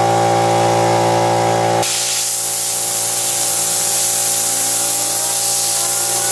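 A steady hum gives way about two seconds in to a loud hiss of compressed air from a blow gun aimed at a metal wagon-wheel fidget spinner. A faint whine rises slowly in pitch under the hiss as the spinner speeds up.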